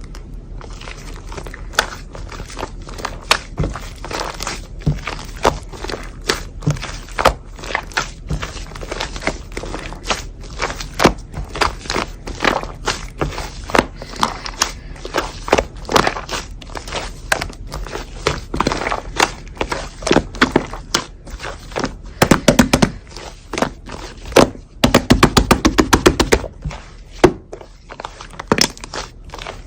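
Hands pressing, poking and squishing slime: a steady run of irregular sticky clicks and pops, with two spells of fast crackling about two-thirds of the way through.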